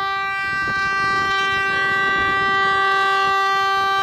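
Boat air horn sounding one long, steady blast at a single pitch with strong overtones.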